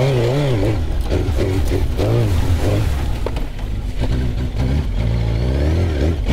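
Suzuki GSX-R1000's inline-four engine revving hard under power off-road, its pitch rising and falling again and again as the throttle is opened and eased.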